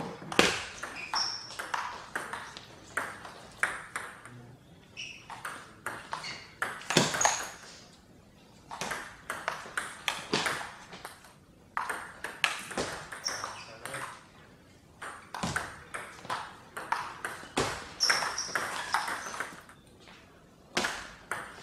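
Table tennis rallies: the ball clicking back and forth off the rackets and the table in quick series, with short pauses between points.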